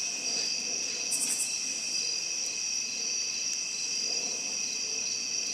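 Night insect chorus: crickets trilling steadily in two high pitches, with a short burst of rapid chirps about a second in.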